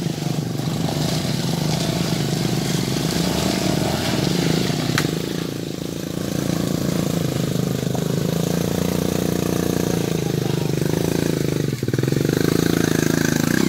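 Small motorcycle engines running and being revved, the pitch rising and falling. A louder, steadier engine drone sets in near the end.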